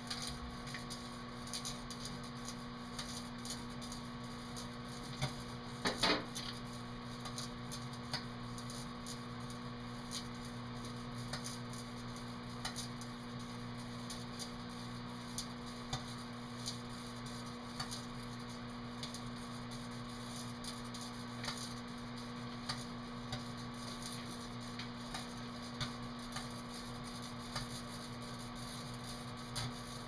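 Microwave oven running with a steady low hum while a capacitor burns inside it with green flames, giving scattered sharp crackles and pops; the loudest pop comes about six seconds in.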